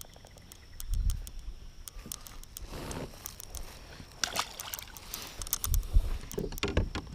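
Water splashing and sloshing around a fishing kayak, with scattered clicks and a few dull knocks on the hull, the loudest about a second in and near six seconds.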